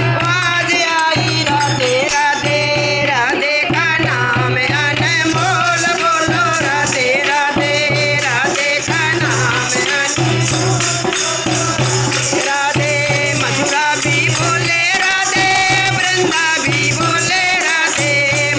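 Devotional Hindi bhajan: a voice singing a wavering melody over a steady low drum beat and jingling percussion like a tambourine.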